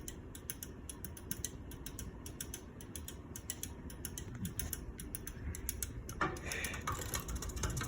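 Casablanca Four Seasons III ceiling fan running, a steady low hum with fast, even mechanical ticking.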